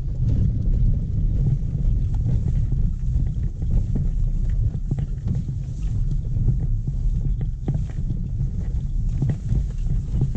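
Car driving slowly over a rough, potholed dirt road, heard inside the cabin: a steady low rumble of tyres and engine with many small, scattered knocks and clicks.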